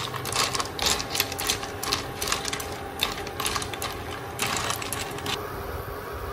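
Hard sea-snail shells clattering against one another in the cooking pot as they are stirred, a rapid irregular rattle that stops about five seconds in.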